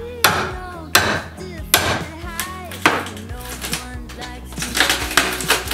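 Hammer striking a wooden cabinet: sharp knocks about once a second, then quicker, lighter taps near the end, as the cabinet is knocked apart. Background music with singing.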